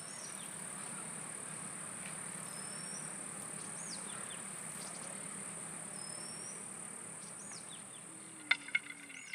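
Outdoor nature ambience: a steady high-pitched insect trill, with a few short bird chirps over it and a handful of sharp clicks near the end.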